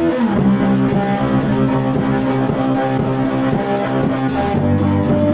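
Rock music played on guitar with bass and drums, with a steady beat. Just after the start the notes slide down in pitch, and the chord changes again near the end.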